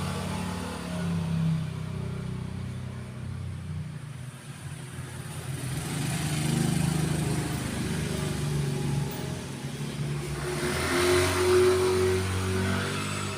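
A motor vehicle engine running, its pitch shifting. Between about 10 and 12 seconds in it gets louder and rises in pitch, as a vehicle passing or revving close by.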